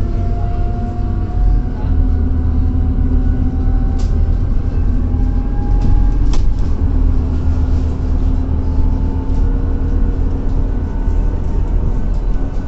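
Scania Citywide 12LF CNG city bus heard from inside the cabin while driving: a steady low engine and road rumble with a drivetrain whine that climbs slowly in pitch, then drops about six seconds in and runs on at a lower pitch. Sharp interior rattles come about four seconds in and again just after six.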